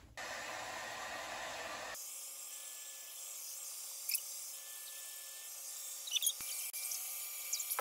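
Handheld blow dryer running, a steady rush of air, with a few brief high chirps near the middle and end.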